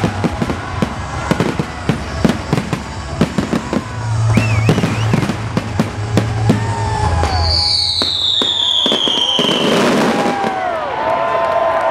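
Fireworks display finale: rapid bangs and crackling with music playing. A long falling whistle sounds in the second half, and a crowd starts cheering near the end.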